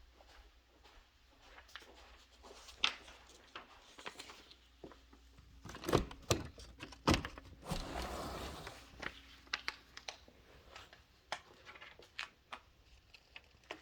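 Footsteps and handling noise in a small room: scattered clicks and knocks, with a few louder thumps about six and seven seconds in and a short scuffing rush just after.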